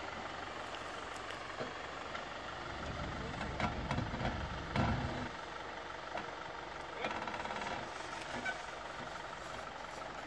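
Land Rover Discovery 5 crawling slowly over a rutted forest track, its engine running low and steady. Between about three and five seconds in, a louder low rumble with sharp cracks and knocks comes as the tyres roll over roots and branches.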